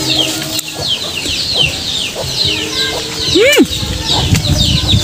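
Chickens in a yard: a steady scatter of short, high, falling peeps with clucking, and one louder rising-then-falling call about three and a half seconds in. A low rumble of wind or handling near the end.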